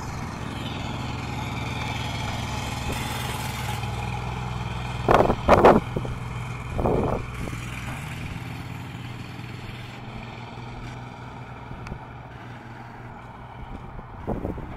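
Fire department Ford Excursion SUV driving past on a gravel road, its engine and tyres running steadily and then fading as it pulls away. A few short, loud blasts come about five to seven seconds in.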